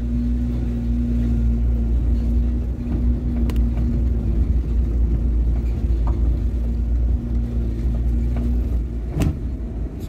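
Car engine running and tyres rumbling over a rough, potholed road, heard from inside the cabin, with a steady hum that fades out near the end. A few short knocks, the loudest near the end.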